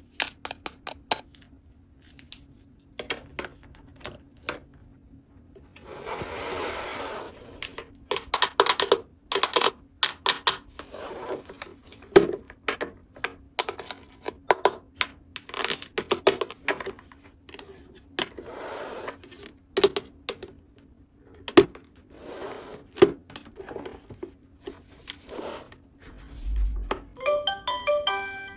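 Small hard plastic toy pieces clicking, tapping and clattering as they are handled, with stretches of rustling or scraping in between. A few short pitched tones sound near the end.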